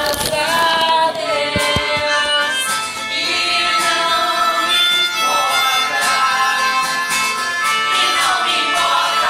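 Music with held and gliding melodic notes throughout.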